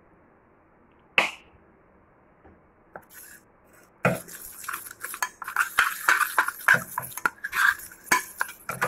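Steel spoon stirring a wet turmeric paste in a stainless steel bowl: one sharp clink about a second in, then from about four seconds in rapid, continuous clinking and scraping of the spoon against the bowl.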